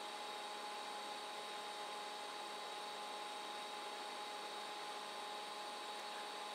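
Steady hiss with a few faint, high, constant electrical whine tones: room tone with electronic hum, no distinct events.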